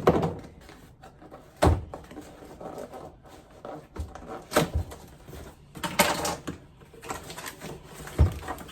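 Cookware and its packaging being handled during an unboxing: a few separate knocks and clunks, with a longer rustle of packaging about six seconds in.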